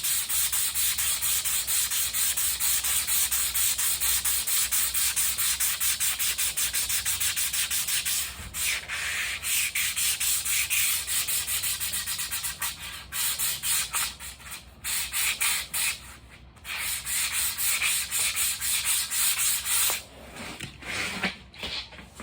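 Sandpaper being rubbed by hand over a car spoiler in quick, even back-and-forth strokes, with a few short pauses, stopping about twenty seconds in.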